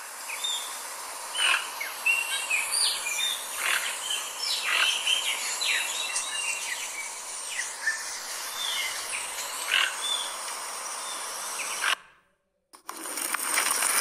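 Many small birds chirping with short, quick, falling notes over a steady outdoor hiss. The recording cuts off suddenly about twelve seconds in, and after a brief silence a different outdoor recording with a louder hiss begins.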